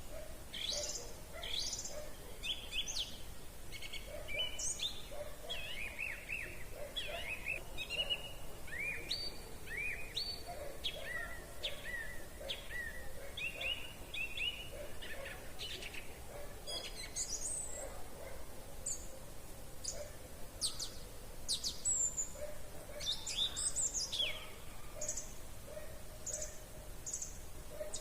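Several wild songbirds singing at once: many short chirps and quick downward-sweeping notes overlapping, with a fainter, lower repeated call underneath.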